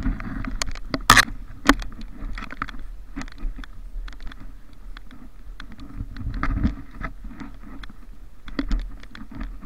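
Footsteps crunching through deep snow and brushing through snow-laden undergrowth. About a second in come two sharp clacks, half a second apart.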